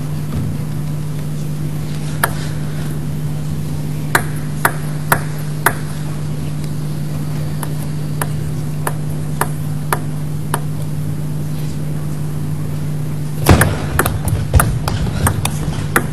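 Table tennis rallies: sharp clicks of the celluloid ball off bats and table, about two a second, over a steady low hum. Near the end a louder burst followed by rapid clapping.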